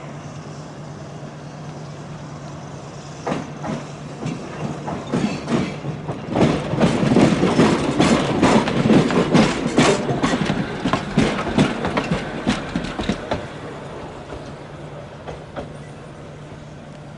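Hiroshima Electric Railway tram passing close by, its wheels clacking over track joints. The clatter starts about three seconds in, is loudest through the middle and fades away near the end, over a steady low hum.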